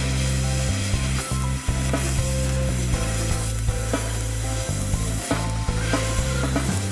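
Fiber laser cutting head cutting small holes in sheet steel: a continuous sizzling hiss with many short clicks. Background music with a steady bass line plays underneath.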